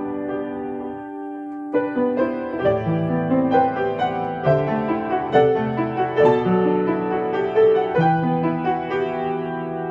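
Solo piano playing a slow, gentle new-age piece: a held chord fades for about a second and a half, then a flowing melody resumes over sustained bass notes.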